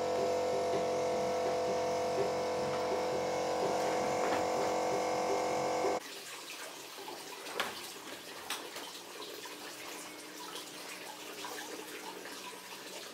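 A steady, many-toned drone for about six seconds cuts off abruptly. It gives way to quieter running and splashing water with scattered clicks and drips.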